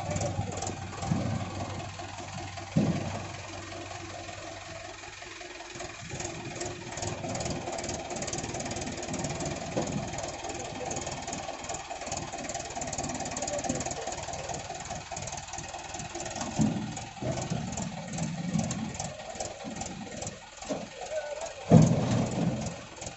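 JCB 3DX backhoe loader's diesel engine running with an even clatter, plus a sharp knock about three seconds in and a heavier thump near the end.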